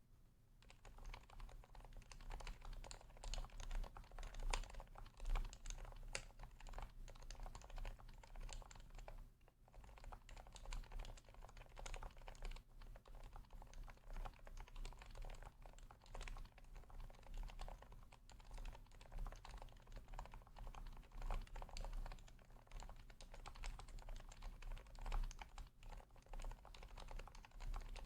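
Steady, fast typing on a Leopold FC980C Topre keyboard, with a short lull about nine and a half seconds in. The keystrokes are muted, since the Topre sliders are lubed and fitted with silencing rings, the stabilizers are lubed with neoprene landing pads, and the case is dampened with shelf liner and a plate gasket.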